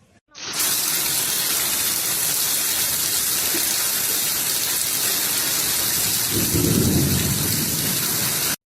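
Steady hiss of falling water, heavy and even, with a low rumble lasting about a second, six seconds in.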